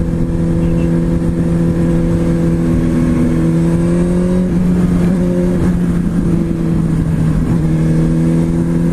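Sport motorcycle engine running at a steady cruising speed, heard from the bike itself with a rough wind rumble on the microphone. Its pitch wavers and eases off briefly about halfway through, then settles steady again.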